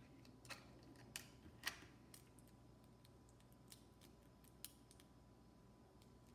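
Small plastic Lego pieces clicking as they are handled and fitted together: a few sharp clicks in the first two seconds, the loudest near two seconds in, then a couple of sparse ones later, over an otherwise near-silent room.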